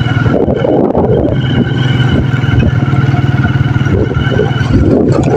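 Motorcycle engine running steadily while being ridden, with gusts of wind noise on the microphone about half a second in and again near the end.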